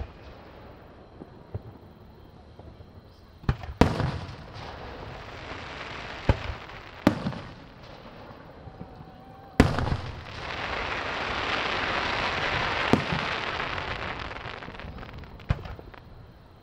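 Aerial fireworks shells bursting, about seven sharp bangs spread a second or a few seconds apart. A long hiss swells and fades between about ten and fifteen seconds in.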